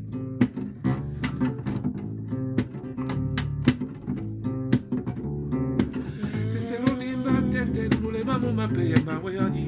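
Guitar playing: a run of sharply plucked notes over sustained low notes. About six seconds in, a voice comes in with wavering sung notes over the guitar.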